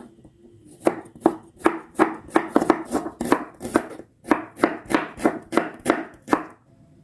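Knife chopping on a cutting board, a steady run of sharp strokes about three a second, with a short pause about four seconds in.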